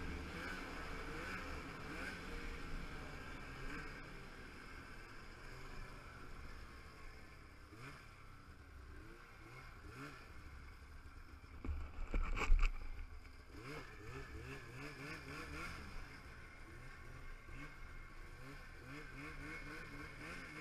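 Arctic Cat two-stroke snowmobile engine running under a trail ride, its pitch rising and falling as the throttle is worked, under a steady rush of wind. A loud thump about twelve seconds in.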